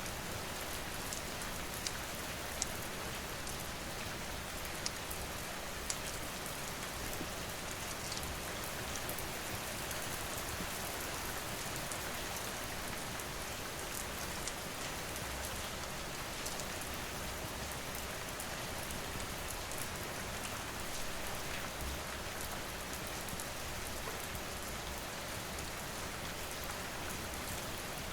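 Steady rain falling, an even hiss, with scattered sharp crackles and pops of a wood fire; a few louder pops come in the first several seconds.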